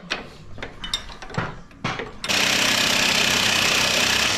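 A few light metal clinks, then about two seconds in an impact wrench hammers steadily for about two seconds, undoing the M16 bolts on the tractor's front frame.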